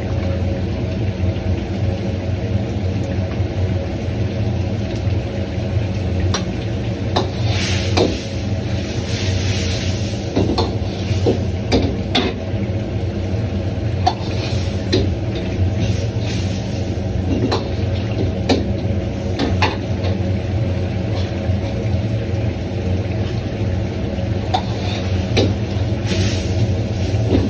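Mapo tofu being cooked in a wok over a steady low roar from a restaurant kitchen's burner and ventilation. A metal ladle knocks and scrapes against the wok now and then, with short swells of sizzling.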